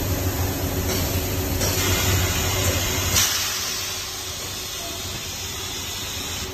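Molded pulp forming press running, with a steady low hum and steam hissing from its heated molds; the hum drops away about three seconds in, leaving the hiss.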